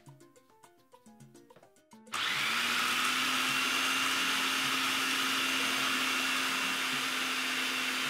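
Electric food processor motor switching on suddenly about two seconds in and running steadily with a constant hum, chopping parsley, cilantro, onion and garlic. Light background music with a beat plays before it starts.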